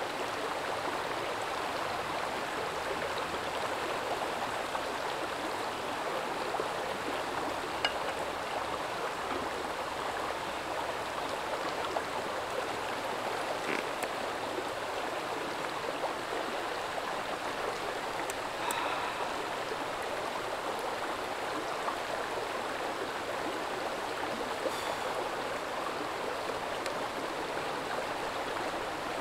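Shallow river running over a stony bed: a steady rush of flowing water, with a few faint brief sounds over it.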